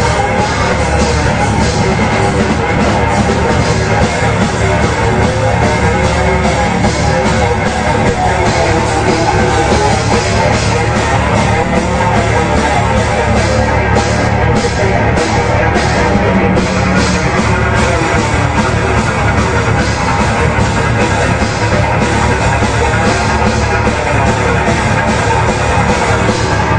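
Metal band playing live: distorted electric guitar and bass over a drum kit, loud and dense, with a run of fast drum hits around the middle.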